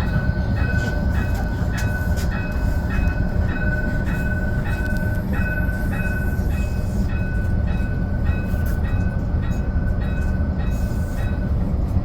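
Interior of a modern city tram: a steady low rumble from the running tram, with an electronic beep repeating about two and a half times a second that stops near the end.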